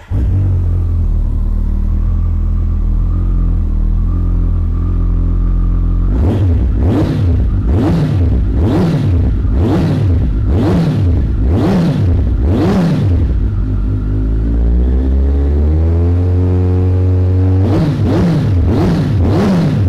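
Kawasaki ZZR1400 Performance Sport's inline-four engine, through Akrapovic titanium silencers, starting and idling. It is then revved in a string of quick throttle blips, about one a second. After that it idles again, and three more blips come near the end.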